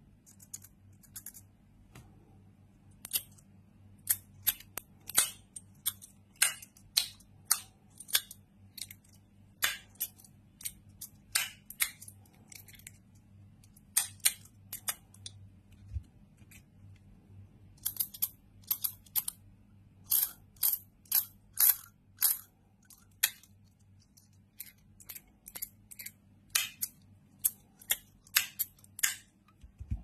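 42cosmo Life & Death haptic fidget sliders being worked by hand, their magnetic bullet pieces making many sharp metallic clicks in irregular quick clusters with short pauses. A single dull thump comes about halfway through, and a faint steady hum sits underneath.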